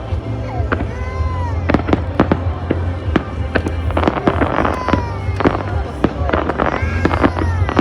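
Fireworks display: a rapid, uneven string of sharp bangs and crackles, thickest about four to five and a half seconds in, over a steady low rumble.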